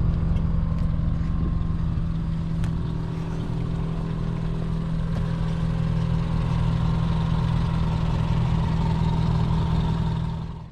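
Subaru Impreza's stock flat-four engine idling steadily through a Stromung dual-tip cat-back exhaust, a low even burble.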